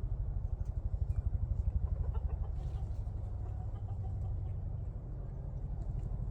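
Chickens clucking faintly over a steady low rumble that pulses rapidly and evenly.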